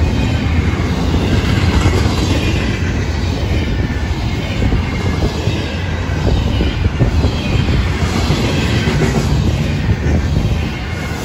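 Florida East Coast Railway freight train's double-stack intermodal well cars rolling past close by: a steady, loud rumble and clatter of steel wheels on the rails.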